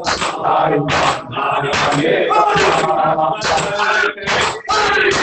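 A male reciter chanting a noha, a Shia mourning lament, into a microphone, with a group of men joining in. Under the chant the mourners beat their chests (matam) with open-hand slaps, about two a second.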